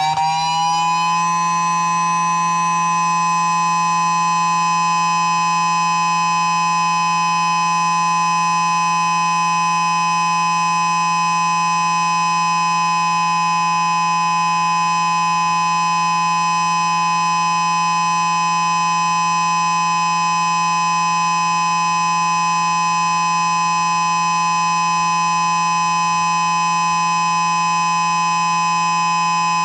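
Ion Pathfinder siren sounding its alert signal, a single steady tone. It finishes winding up in the first second, then holds a loud, steady note of several tones.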